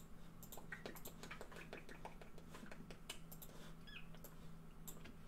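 Faint, irregular clicking and tapping of keystrokes and mouse clicks on a computer keyboard and mouse, with a faint steady hum underneath.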